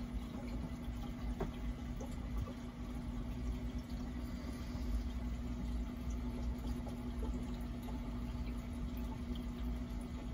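Aquarium filter running: a steady low hum with water trickling and bubbling.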